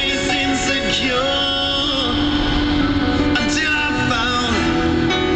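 Music: a song with a male voice singing over guitar.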